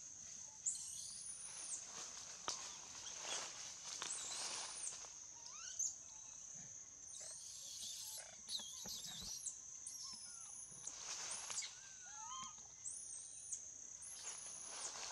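Tropical forest ambience: a steady high insect drone with about a dozen short, high whistled bird calls over it and a few lower gliding chirps.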